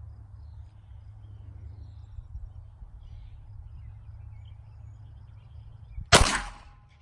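A single 9mm shot from a Glock 43X subcompact pistol about six seconds in, sharp and loud and dying away within about half a second, over a steady low rumble.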